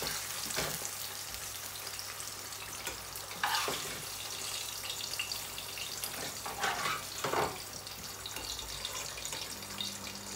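Hot oil sizzling steadily in a cast-iron frying pan while fried fish steaks are lifted out with a metal slotted spatula and slid into a pan of gravy, with a few short scrapes and knocks of the spatula.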